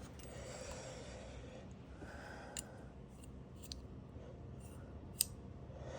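Faint rustling and handling noises from fan motor parts being worked on by hand, with a few light clicks, the sharpest near the end.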